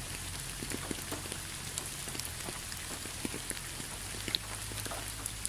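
Rain falling on a surface: an even hiss with scattered ticks of single drops.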